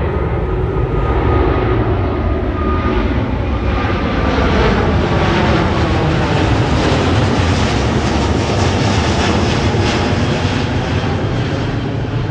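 Airbus A350 jet airliner with Rolls-Royce Trent XWB engines climbing out at takeoff power directly overhead, a loud steady jet roar. Faint tones inside the roar slowly fall in pitch as the aircraft passes and moves away.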